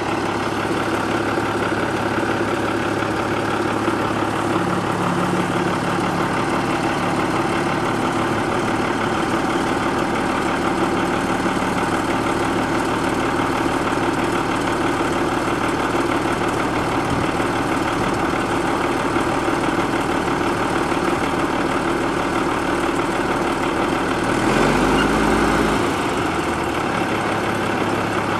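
1978 International dump truck's engine idling steadily, with one brief rev near the end that rises in pitch and drops back to idle.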